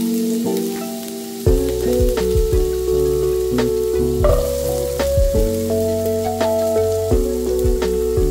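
Minced garlic sizzling in hot oil in a non-stick wok, with onion chunks tipped in about halfway through, under background music with held notes and a bass line.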